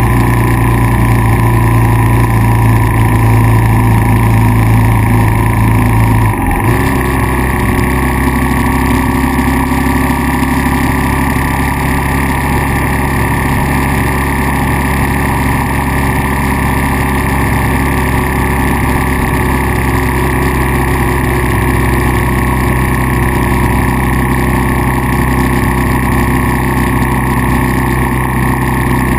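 Kawasaki KLR650 single-cylinder four-stroke engine running steadily. About six seconds in, its note changes abruptly as the strongest low tone drops out, with a brief click, and it then runs on steadily at the new note.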